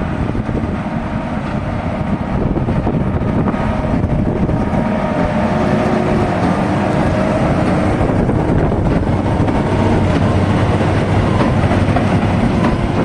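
A 240 hp Case tractor and the New Holland 1290 Plus big square baler it is pulling, running steadily together while baling barley straw.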